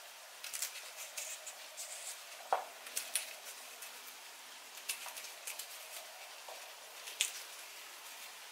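Small knife peeling the tough skin off a raw artichoke's stem and trimming its base: faint, irregular crisp scrapes and snaps of the knife through fibrous plant tissue, the sharpest tick a little over two and a half seconds in.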